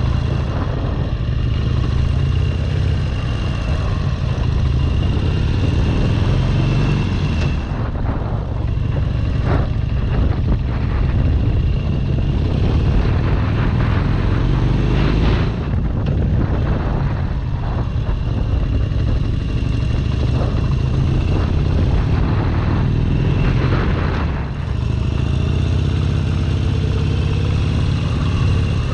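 Harley-Davidson Sportster Seventy-Two's 1200 cc air-cooled V-twin running while riding, heard close to the engine, with wind and road noise. The engine note changes a few times, about a quarter of the way in, halfway and near the end.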